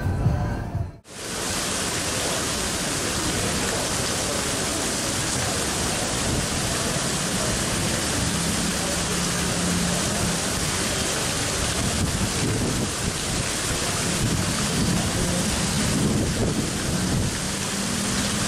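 Music cuts off about a second in, then a steady, even hiss of noise holds, with a faint low hum now and then.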